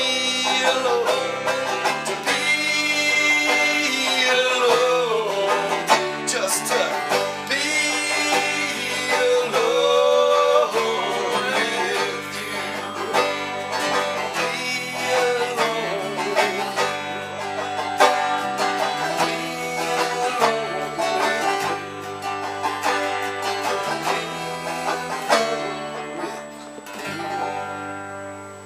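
Bluegrass-style music with plucked banjo and guitar, fading out near the end.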